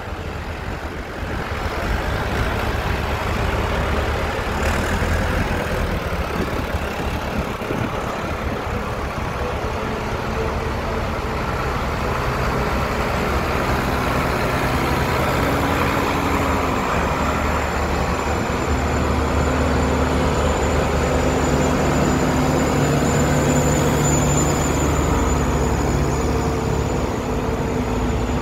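A procession of farm tractors, including John Deeres and a Massey Ferguson, driving slowly past one after another, their diesel engines running steadily and overlapping as each one comes by. A thin high whine runs through it, strongest in the last few seconds.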